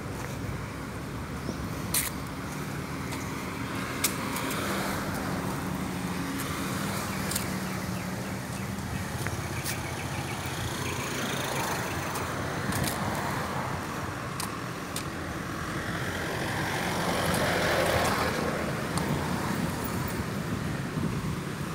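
Road traffic going by, a steady wash of vehicle noise with an engine hum in the first few seconds and one vehicle growing louder and passing about three-quarters of the way through. Occasional sharp clicks.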